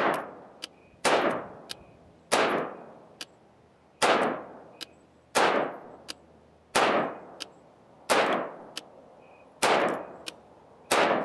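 Radical Firearms 7.5-inch AR-15 pistol firing nine slow, aimed semi-automatic shots, roughly one every second and a half. Each loud report rings out briefly and is followed by a short, faint tick.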